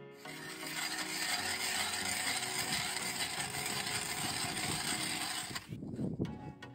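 Hand ice auger's blades cutting into river ice: a steady, rough scraping grind as the auger is turned. It stops about a second before the end, followed by a few dull knocks.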